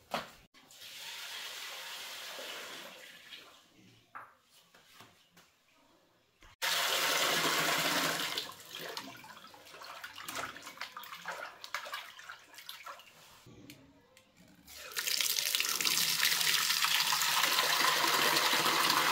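Water from a wall tap gushing into a pot, in two loud spells, one about six seconds in and one for the last four seconds. In between, quieter splashing as hands swish the water to rinse rice.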